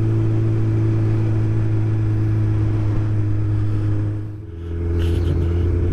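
Suzuki Hayabusa's inline-four engine running at a steady speed, dipping briefly about four and a half seconds in, then picking back up.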